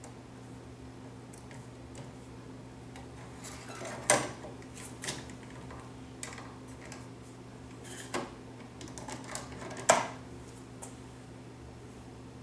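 Scattered clicks and light metallic knocks from the Wixey WR510 readout's sliding gauge and its tension spring being handled and hooked back into place. The sharpest knocks come about four and ten seconds in, over a steady low hum.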